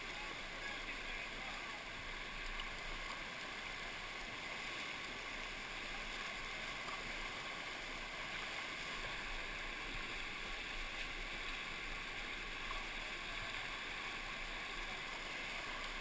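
Rushing whitewater of a class IV rapid, a steady rush of water heard from a kayak running through it.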